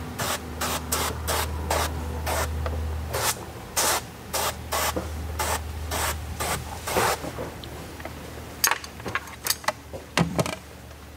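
Hand-held pressurised trigger sprayer on a hose misting water onto the inside of a car windshield in quick short squirts, about two a second. A low hum runs under the squirts and fades about seven seconds in. A few sharper clicks follow near the end.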